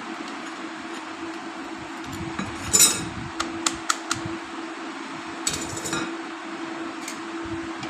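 Steel and fibre clutch plates of an old Royal Enfield Bullet clinking against each other and the clutch basket as they are handled and fitted. There is a loud metallic jangle about three seconds in, a few sharp clicks after it, and another jangle around six seconds. A steady low hum runs underneath.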